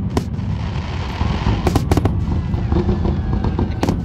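Fireworks finale: aerial shells bursting in quick bangs over a continuous low rumble of booms, with a stretch of hiss between about half a second and a second and a half in, then a cluster of bangs around two seconds in.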